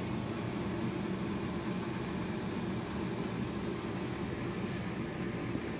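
A steady, even mechanical hum with a rushing noise above it, unchanging throughout.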